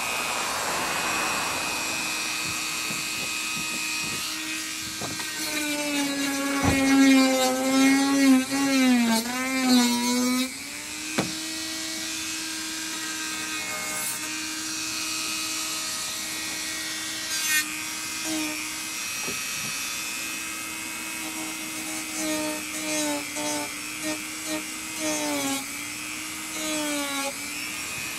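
Small high-speed power tool running with a steady whine. Twice, around five to ten seconds in and again near the end, its pitch sags and wavers and it gets louder as it is pressed into the work, typical of sanding or deburring the freshly cut edge of the plastic bumper.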